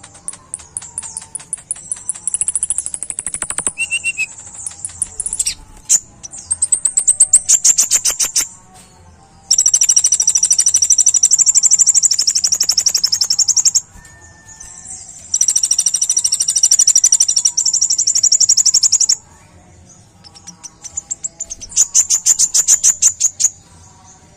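Kolibri ninja sunbird singing long, very high, rapid trilling phrases of a few seconds each, with short pauses between them.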